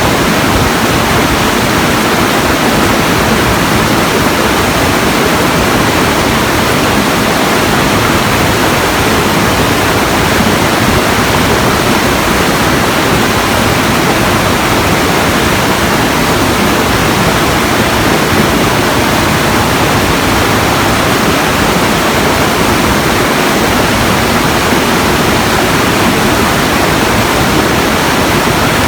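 Steady, even rushing of water, unbroken and unchanging throughout.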